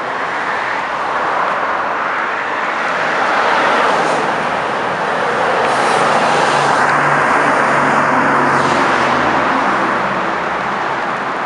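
Spartan fire truck's turbocharged two-stroke Detroit Diesel engine running as it drives past, loudest from about six to nine seconds in, over steady road traffic noise.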